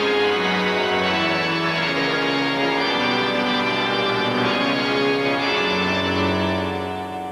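Organ music: sustained chords under a slowly moving line of held notes, easing down in the last second or so.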